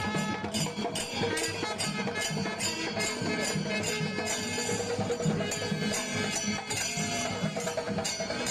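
Background music with a steady beat: percussion strokes about two or three a second over sustained instrumental tones.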